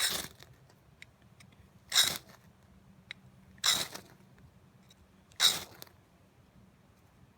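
A Winkler Utility knife scraped hard down a fire-starting rod to throw sparks, four quick strikes about two seconds apart.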